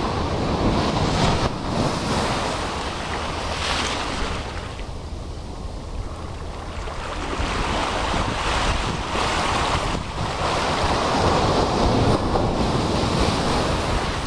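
Ocean surf breaking and rushing up the beach, with wind buffeting the microphone. The wash dips a few seconds in, then swells again in the second half as a big wave breaks and foams up the sand.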